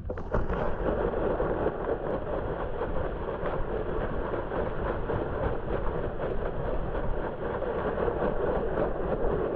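Plastic sled sliding over snow while towed by a dog, heard from on the sled: a steady scraping rush of the sled's base on the snow, full of small crackles, that starts suddenly as the sled sets off.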